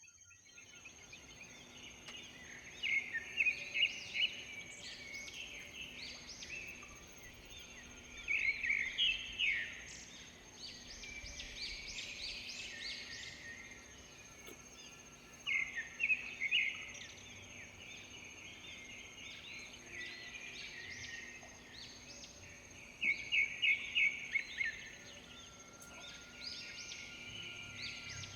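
A bird gives four bouts of rapid, chattering calls, roughly every six to seven seconds, over a steady, thin, high-pitched whine and a soft background hiss.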